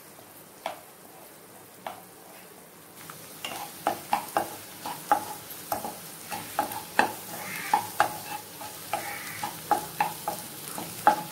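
Eggs and shredded vegetables sizzling in a nonstick wok while a spatula scrambles them, its strokes knocking and scraping against the pan. Two single taps at first, then rapid stirring from about three seconds in, at two to three strokes a second.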